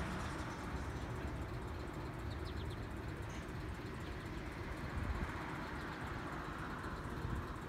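Outdoor road traffic noise, steady, swelling as a vehicle goes by about five seconds in, with a low, uneven wind rumble on the microphone.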